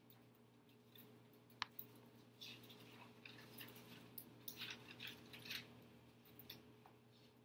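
Faint rustling and crinkling of paper as envelopes and bills are handled and opened, in clusters between about two and six seconds in, with a single sharp click about a second and a half in. A low steady hum runs underneath.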